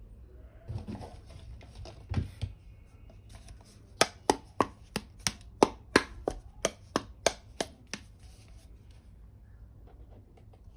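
Small plastic toy pieces being handled with a few soft knocks, then a rapid run of about a dozen sharp taps, roughly three a second, stopping near the end.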